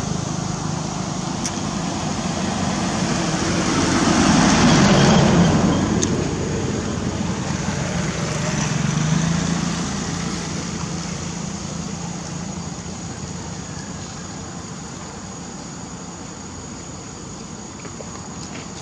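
Road traffic passing, a vehicle engine swelling about four to five seconds in and again around nine seconds, then slowly fading away.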